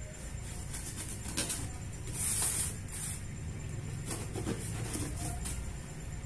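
Packing tape on a cardboard box being slit and pulled open with a small cutter: short scratchy strokes, with one louder hissing tear about two seconds in, over a low steady hum.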